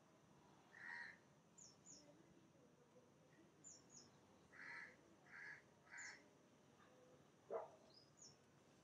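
Faint bird calls over a quiet background: a short call about a second in and three in quick succession around the middle, with brief high chirps scattered between. A brief sharp sound near the end.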